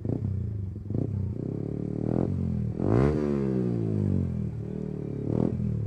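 Yamaha R15M's single-cylinder engine with an aftermarket full exhaust, revved up to a loud peak about three seconds in and then let fall back, with short throttle blips before and after.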